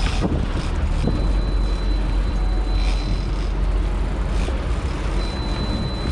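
Sportfishing boat's engines running with a steady low rumble, water washing past the hull. A faint thin high whine comes and goes twice.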